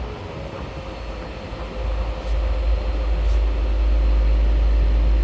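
Crane running as the load is lowered: a steady deep mechanical rumble with a faint steady whine over it, growing louder about two seconds in.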